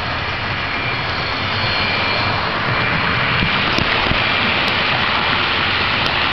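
Model train running on its track: a steady whirring rush with a faint high whine, and a few light clicks in the second half.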